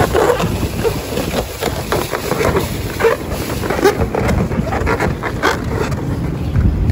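Latex balloons squeaking and rubbing against each other and a metal rail as hands twist them into place, in irregular short squeaks, over wind rumbling on the microphone.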